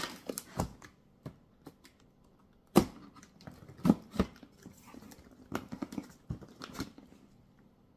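Cardboard shipping box being opened and its packed contents handled: scattered knocks and rustles, the loudest three knocks about three and four seconds in.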